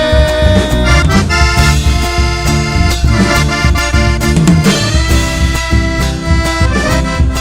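Chamamé dance music led by accordion over a steady bass and a regular beat.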